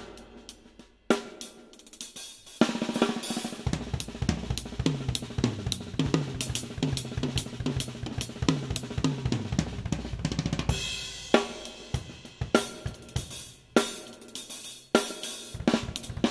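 DW Collector's Series drum kit being played, heard close up from the drummer's seat: snare, bass drum, hi-hat and cymbals. After a sparse start with a lone hit about a second in, steady playing picks up at about two and a half seconds, with a cymbal crash about two-thirds of the way through.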